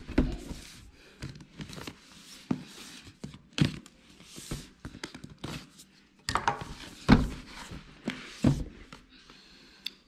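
A rigid cardboard retail box being handled and opened: irregular knocks and scrapes of cardboard on the table and against its lid, loudest about a third of the way in and again a little past two-thirds.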